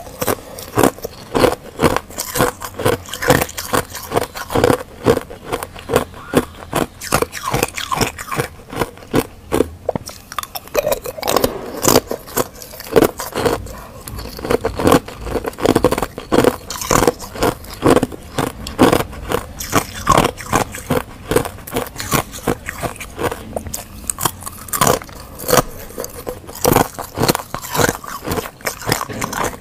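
Thin pieces of reshaped freezer frost ice being bitten and chewed close to a clip-on microphone: a rapid, irregular run of sharp crunches, with crackling as pieces are snapped apart by hand.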